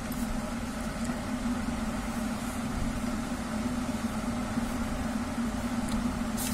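Steady low mechanical hum, even in pitch and level, like a motor running.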